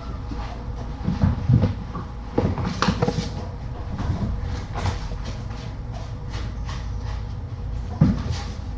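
Kittens playing: scattered light knocks, scuffs and rustles, the busiest a second or two in and a sharper knock near the end, over a steady low hum.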